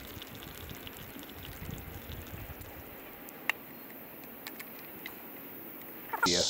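Faint clicks of a socket wrench and spark plugs being handled on an outboard's powerhead, with one sharper click about three and a half seconds in. Near the end a loud, high buzz of insects comes in.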